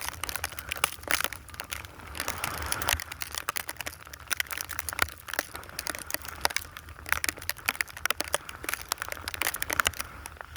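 Snow being dug by hand: a steady run of irregular crunching and scraping close to the microphone.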